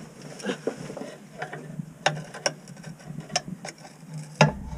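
Scattered, irregular metallic clicks and clanks as a pickup's transmission is worked and shifted to get it centered and free of the bell housing, with a louder knock near the end.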